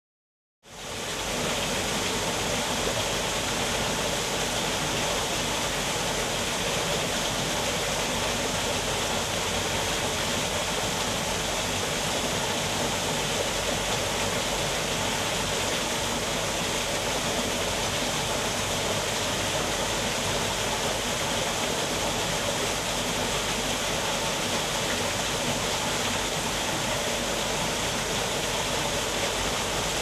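Small waterfall running steadily down a rock face: an even, unbroken rush of falling water that fades in during the first second.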